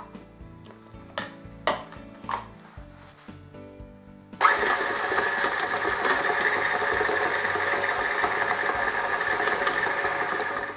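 KitchenAid stand mixer switched on about four seconds in, its flat beater turning butter cubes in the steel bowl to soften them; it runs steadily and stops near the end. Before it starts, a few light knocks as butter is scraped off a spatula into the bowl.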